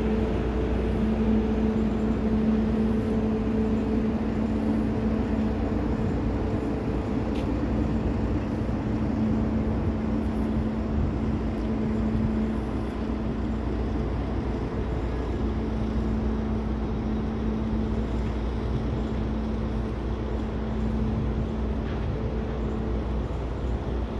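Diesel engine of a DR1A diesel multiple unit running as it approaches at low speed: a steady drone with a held low hum, over a low rumble.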